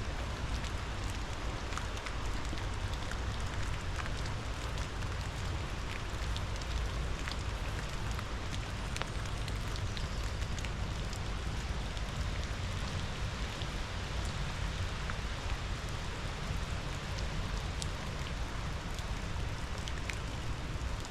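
Steady rain, with many individual raindrops ticking sharply against a nearby surface, over a steady low rumble.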